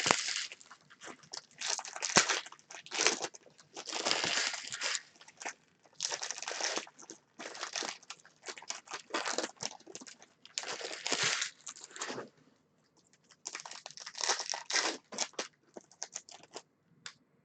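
Trading-card pack wrappers being torn open and handled: crinkling and tearing of foil packaging in irregular bursts with short pauses.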